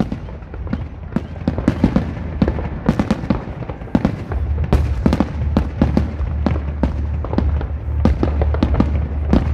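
Aerial fireworks bursting: a rapid, dense series of sharp bangs and crackles, several a second throughout. From about halfway through, a steady low rumble runs underneath.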